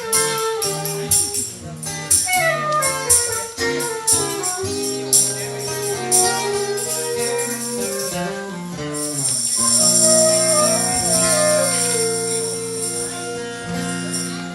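Live band playing an instrumental passage with a steady beat, sustained melody notes over bass, and cymbals washing in during the second half.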